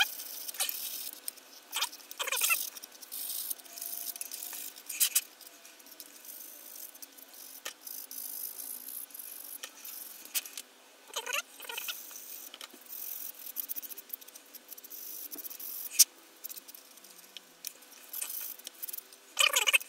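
Medium-grit sanding stick rubbing in short strokes along the plastic leading edge of a 1:72 model kit's wing to take off the seam line. Small clicks and taps come from the kit and tools being handled.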